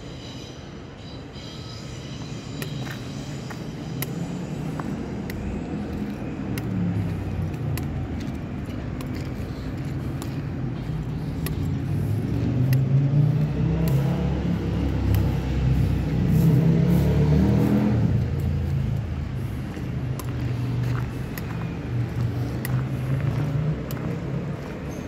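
Road traffic: a motor vehicle's engine rumble builds up, is loudest for several seconds in the middle, then fades away, with scattered light clicks over it.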